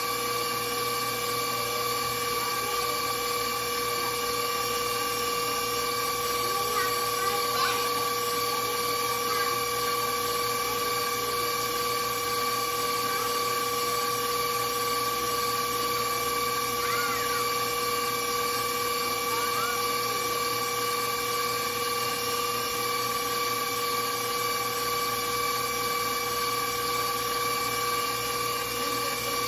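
Stand mixer running steadily, its motor giving a constant whine as the wire whisk beats the batter in a stainless steel bowl.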